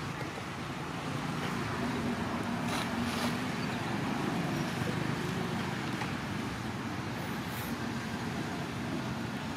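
Steady background noise with a low hum of distant road traffic.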